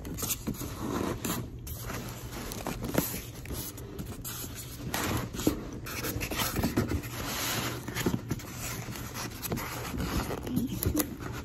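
Polystyrene foam packing blocks scraping and rubbing against a cardboard box as they are pulled out of it, a tight fit, with uneven scratchy rubs and small knocks.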